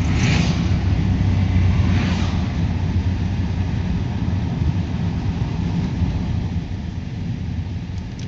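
Engine and road noise of a vehicle cruising on a freshly rebuilt GM 4L60E automatic transmission, in overdrive with the torque converter locked up at about 45 mph. There is a steady low rumble with two brief hissing swells near the start and about two seconds in, and it gets slightly quieter in the second half.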